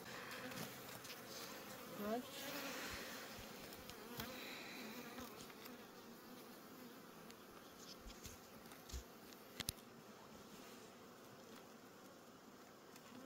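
Honey bees buzzing around an opened hive, a faint steady hum, with a few light knocks near the end as the hive frames are handled.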